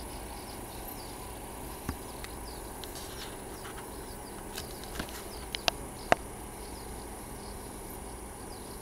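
Quiet riverbank ambience at dusk: a steady hiss with faint insect chirping. A few sharp clicks fall between about two and six seconds in, the loudest a little past six seconds.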